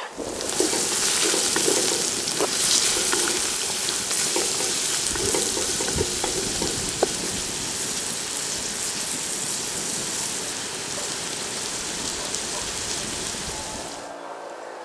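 Food sizzling in a hot frying pan, an even crackling hiss with occasional small clicks. It starts suddenly and cuts off near the end.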